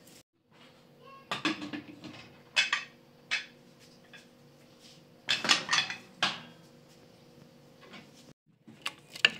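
Metal pots, pans and lids clinking and clattering on a gas stove as they are handled: a few separate sharp clanks, the loudest cluster about halfway through and one sharp clink near the end, over a faint steady hum.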